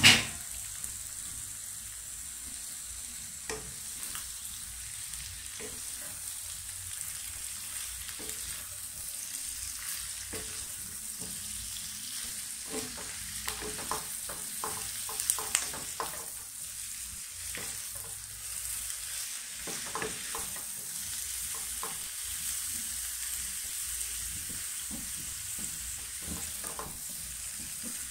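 Cauliflower florets sizzling in butter in a wok, stirred with a wooden spatula. The spatula scrapes and knocks against the pan now and then, over a steady high hiss of frying.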